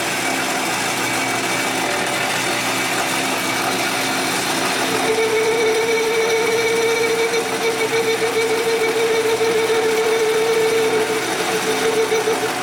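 Metal lathe running under cut, the tool bit turning a long bar with a steady machine noise. About five seconds in a steady ringing tone joins it and fades out near the end: the cutter chattering at the bar's unsupported end.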